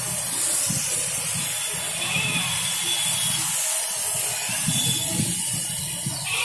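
Compressed-air spray gun hissing steadily as it sprays the final glossy lacquer (glazing) coat onto wooden door panels.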